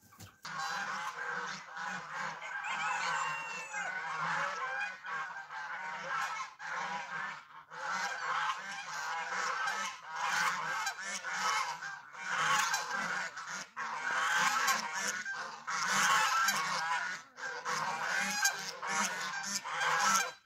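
A flock of white domestic geese honking, many calls overlapping in a continuous chorus.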